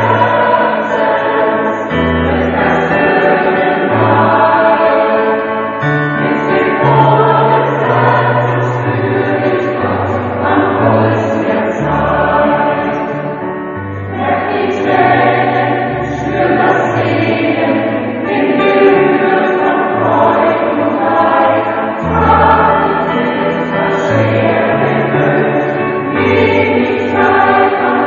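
Choir singing a sacred song, with low notes held for a second or two at a time underneath.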